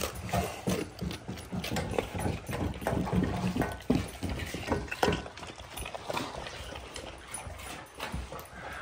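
Rottweilers eating raw chicken and eggs from stainless steel bowls: irregular wet chewing, crunching and lapping, with quick clicks as the metal bowls knock on the wooden floor.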